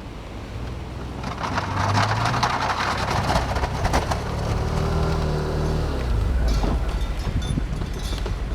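Can-Am Commander 1000's Rotax V-twin engine running under load as it pushes snow with its plow, getting louder about a second in. From about one and a half to four seconds in there is a dense crunching scrape of snow being shoved by the blade.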